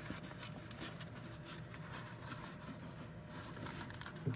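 Faint handling noise, light scattered clicks and rustles, over a low steady hum, with one sharp knock right at the end.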